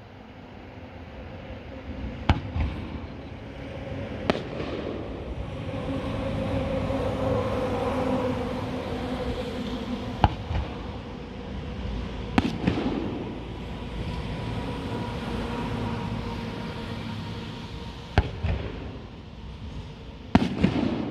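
Aerial fireworks shells bursting: about six sharp bangs a few seconds apart, with continuous crackling and rumbling between them.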